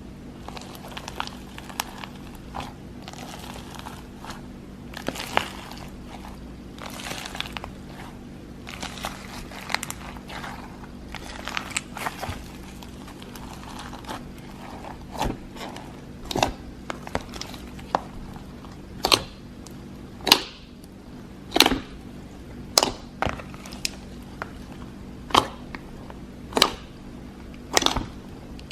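Slime being squeezed and poked by hand: soft crackles and clicks at first, then from about halfway a regular run of sharp pops, roughly one a second.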